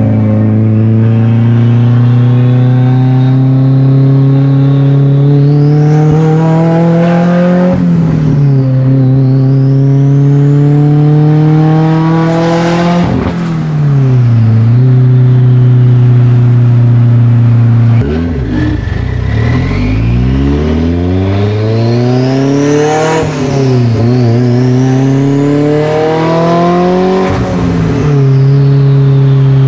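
Mitsubishi Evo IX's turbocharged four-cylinder engine pulling hard, revs rising and dropping again several times. Over it, a high GT37R turbo whistle climbs as boost builds and falls away when the revs drop.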